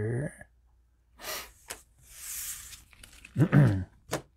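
A man's breath, heard as a hissing exhale, and a short wordless voice sound, with a few light clicks.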